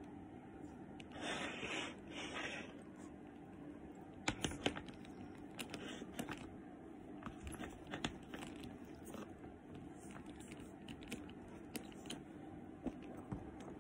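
Handling noise from a handbag being gripped and turned by its silk-scarf-wrapped handle: soft fabric rustles and scattered light clicks of the bag's hardware, with a sharper cluster of clicks about four seconds in.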